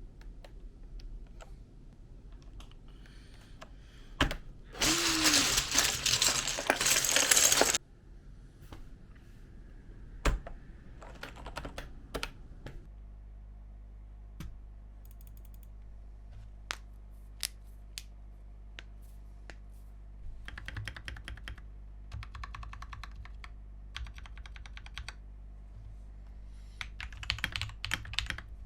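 Typing on an Akko Monsgeek MG75 mechanical keyboard: scattered single key clicks and short runs of keystrokes. About five seconds in there is a louder, dense burst of noise lasting about three seconds.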